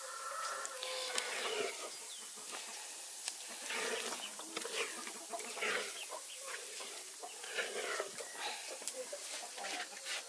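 Chickens clucking in a run of short, irregular calls, over a steady high hiss.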